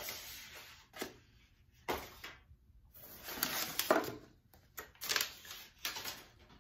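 Rustling and clattering of cosmetics packaging being handled, in several short bursts with sharp clicks, the loudest about three to four seconds in.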